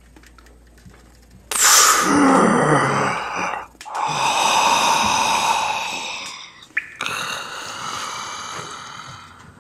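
Added horror-style sound effects of heavy, gasping breaths: a sudden loud gasp about a second and a half in, then two more long breathy swells that fade away. There is a sharp click between the second and third.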